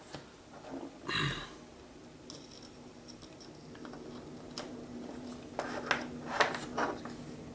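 Small clicks and taps from handling a soldering iron and wires on a workbench while desoldering, with a brief rustle about a second in and a faint steady hum underneath.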